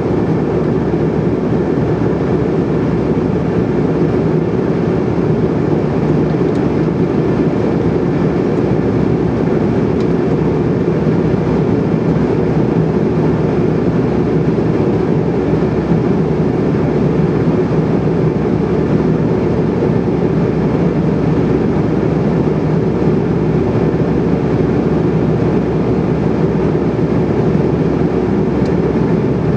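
Steady cabin noise of a Bombardier CRJ700 regional jet in flight, heard from a window seat: an even, low rush of airflow and the hum of its rear-mounted GE CF34 turbofan engines, with the aircraft in descent.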